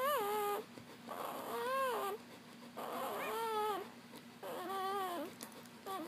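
Newborn Papillon puppies squealing while nursing: four short, high cries that rise and fall in pitch, about one and a half seconds apart.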